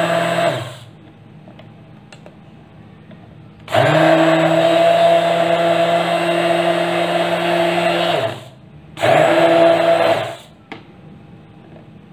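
Hand blender running in short runs as it blends milk and oil into eggless mayonnaise: it cuts off within the first second, spins up again for a run of about four seconds, then runs once more briefly for about a second and a half. The motor hum is steady while it runs, and between runs it is quiet.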